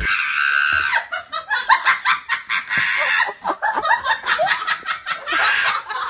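Young women laughing in quick high-pitched bursts, strongest in the first second and again near the end.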